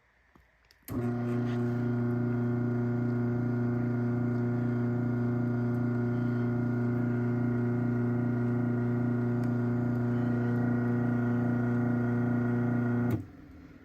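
Craftsman 1/2 hp chain-drive garage door opener running to close the door: a steady electric-motor hum that starts about a second in and cuts off sharply near the end.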